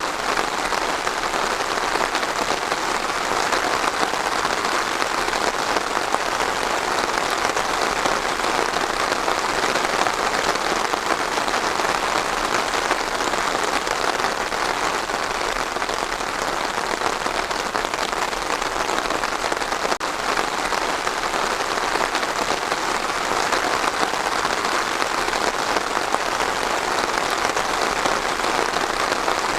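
Steady rain falling, an even continuous patter.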